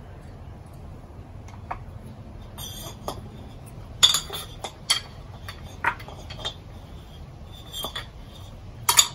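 Ceiling fan housing pieces clinking and rattling against each other as they are handled and fitted together while a wire is threaded through them: a scatter of sharp, irregular clinks, the loudest about four seconds in and again near the end.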